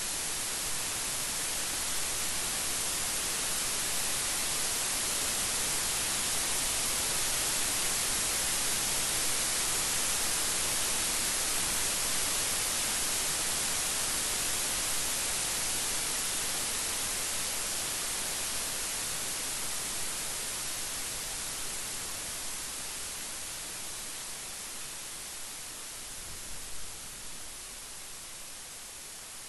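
Steady heavy rain, a dense even hiss that eases off somewhat over the last few seconds, with a couple of faint knocks near the end.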